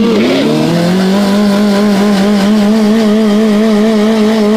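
Sport motorcycle engine revving up over about a second and held at steady high revs, with a slight wobble, while the rear tyre spins in a smoky burnout.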